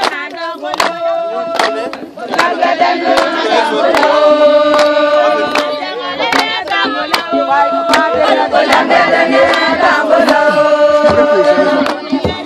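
A group of people singing together in long held phrases, with short breaks about two seconds in and near six and ten seconds, over sharp knocks or claps at a steady beat about once a second.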